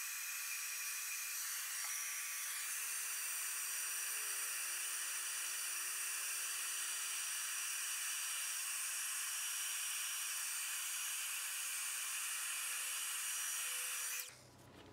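Darice embossing heat tool running steadily, a fan-driven hiss of hot air with a faint motor whine, as it melts holographic embossing powder. It is switched off suddenly just before the end.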